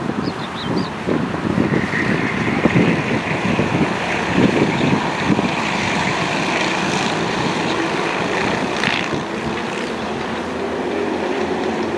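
Racing kart engines buzzing as a pack of karts laps the circuit, their notes rising and falling with the corners. Wind buffets the microphone through the first half, and one engine tone holds steadier near the end.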